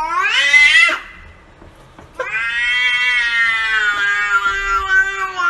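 A domestic cat meowing twice in long, drawn-out calls: the first rises in pitch and breaks off about a second in, and the second, starting about two seconds in, is held for about three seconds and slowly falls.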